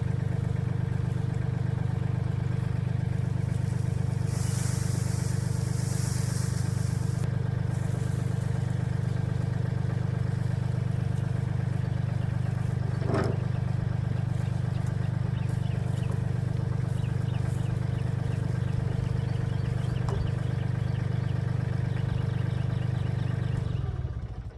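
Mahindra 1626 compact diesel tractor running steadily at a constant speed while working its front end loader, with a brief hiss a few seconds in and a single click near the middle; the engine sound cuts off near the end.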